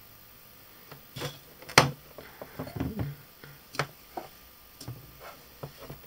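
Irregular light clicks and taps from a soldering iron and fine wires being handled against a phone circuit board, with one sharper click a little under two seconds in and a brief scuffle around three seconds.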